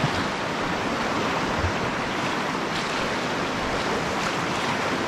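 Steady rush of fast whitewater churning around a canoe as it runs a rapid.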